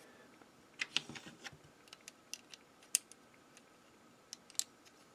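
Small, sharp plastic clicks and taps, irregular and about a dozen in all, from fingers handling a plastic transforming robot figure while pressing a tiny face-mask piece onto its head. The mask is fiddly to make stay on.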